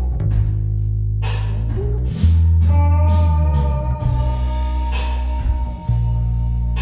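Background blues-rock music with guitar and drums over sustained bass notes.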